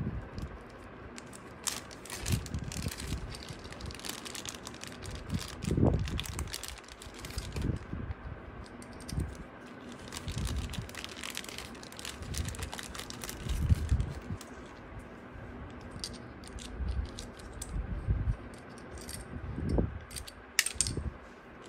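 A small zip-lock plastic bag being opened and handled, with the hard plastic fan-cable clips inside clicking and rattling against each other. There are many short clicks and a few dull bumps.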